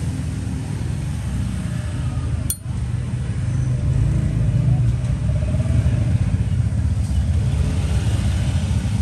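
Steady low rumble of motor traffic, with a short break about two and a half seconds in.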